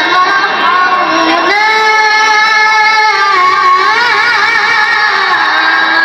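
A boy's voice reciting the Quran in melodic tilawah style, holding long sustained notes and breaking into a quavering ornament partway through.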